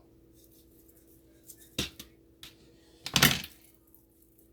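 Knife and cutting-board knocks while fat is trimmed off a raw T-bone steak: a sharp knock about two seconds in and a louder clunk about a second later, over a faint steady hum.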